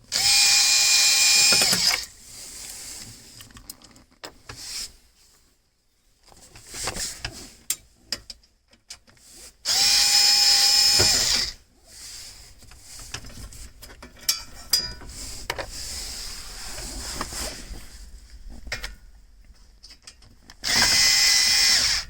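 Cordless power driver spinning out screws, in three runs of about two seconds each, with small clicks and handling noise of loose parts between the runs.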